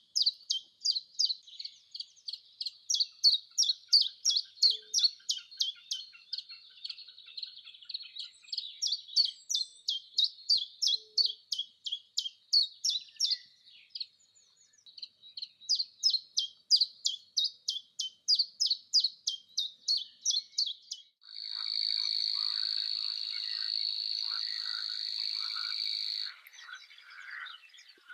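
A bird calling in a rapid series of sharp, high chirps, about four a second, with a brief pause about two-thirds of the way through. About 21 s in, this changes abruptly to a loud, steady high-pitched trill lasting about five seconds.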